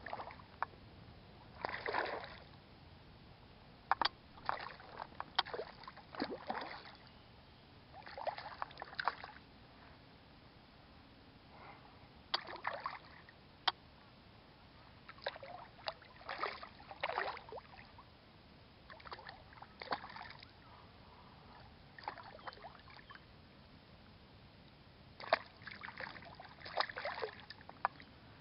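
Water splashing and sloshing in short, irregular bursts every second or two, with a few sharp clicks among them.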